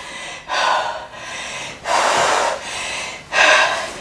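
A woman breathing hard from exertion during V-up to knee hug reps: three forceful exhales about a second and a half apart, with quieter breaths in between.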